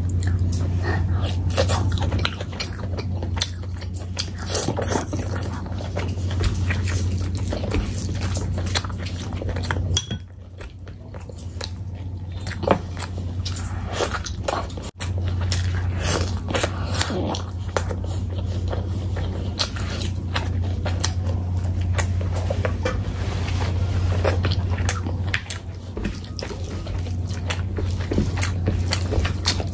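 Close-miked eating of curry and rice by hand: wet chewing, smacking and squishing mouth sounds with bites into pieces of meat, over a steady low hum that drops out for a few seconds about a third of the way in.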